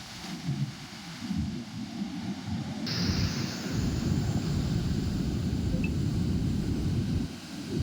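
Strong wind buffeting the microphone: a gusty low rumble, with a higher hiss that comes in suddenly about three seconds in.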